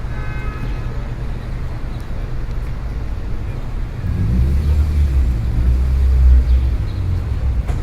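City street traffic with a steady low rumble; a heavier vehicle rumble swells about halfway through and eases off near the end as it passes.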